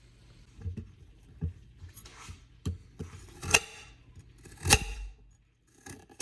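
Sweet potatoes being peeled and cut by hand: scrapes and about five sharp knocks of a blade on a cutting board, the loudest two in the middle, with a quick cluster of clicks near the end.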